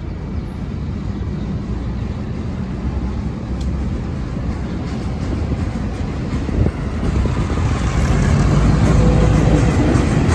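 LIRR MP15AC switcher's diesel engine running with a steady low rumble. It grows louder about 7 seconds in as the locomotive comes closer.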